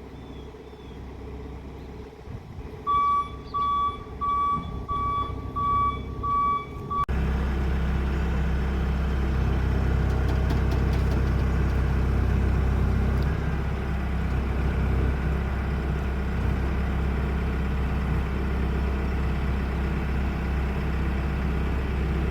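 A forklift's engine runs while its reversing alarm beeps about six times, evenly spaced, starting about three seconds in. A few seconds later the sound changes abruptly to a louder, steady engine drone.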